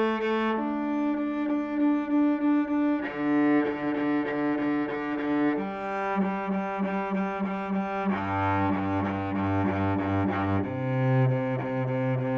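Cello bowing a string's middle (octave) harmonic, then the open string an octave below, one sustained note after another, each held about two and a half seconds. The pairs step down to lower strings in turn.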